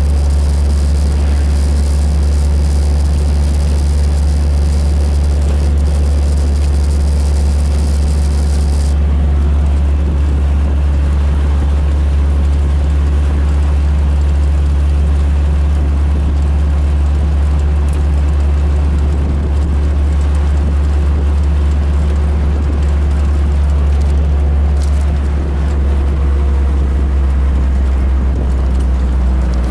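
Steady low drone of a vehicle's engine and road noise heard from inside the cab while driving, with a hiss on top that drops away about nine seconds in.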